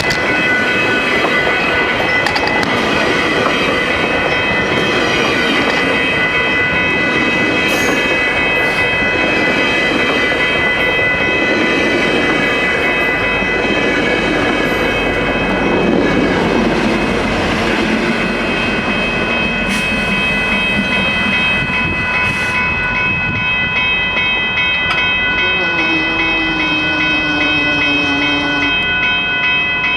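A commuter train running past on the line, its wheels clacking over the rail, with steady high ringing tones over the rumble throughout.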